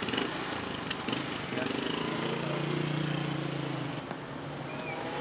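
Street traffic noise, with a passing motor vehicle's engine hum growing louder about a second and a half in and fading again near four seconds.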